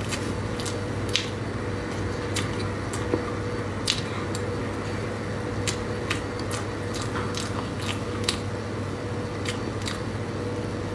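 A person eating soft, creamy matcha mille crêpe cake: wet mouth clicks and smacks scattered through, over a steady low hum.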